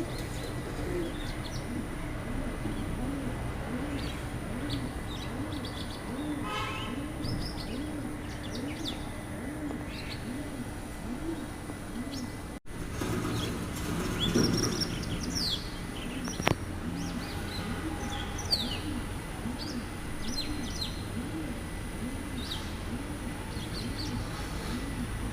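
Small birds chirping in short, scattered calls, over a low cooing that repeats evenly about one and a half times a second. A single sharp click comes about sixteen seconds in.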